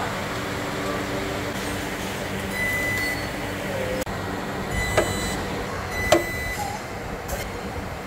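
Steady bodyshop background noise with two sharp snaps about a second apart in the second half, from a resistance spot welding gun firing on the car's sill.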